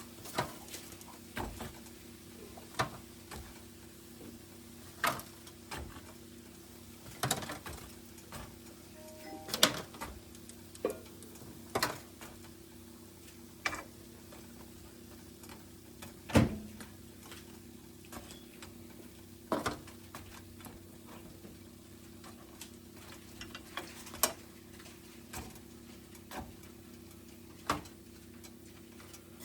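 Scattered sharp clicks and knocks at irregular spacing, about one every one to two seconds, over a steady low hum.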